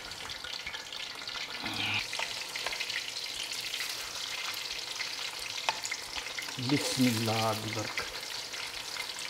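Small kofta meatballs frying in hot ghee in a wok as they are spooned in: a steady sizzling hiss with scattered crackles.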